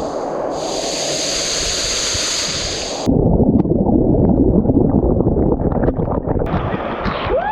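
Rushing water of a waterfall, a loud steady noise. About three seconds in it changes abruptly to a rougher, buffeting sound, as of wind on the microphone, and a short rising whistle-like tone comes near the end.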